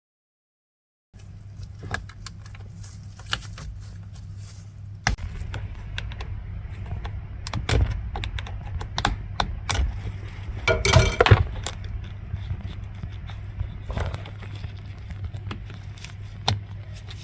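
Small clicks, taps and rattles of hands unplugging wiring connectors and handling plastic parts in a car's steering column, over a steady low hum, with a louder rattling scrape about eleven seconds in. It opens with about a second of dead silence.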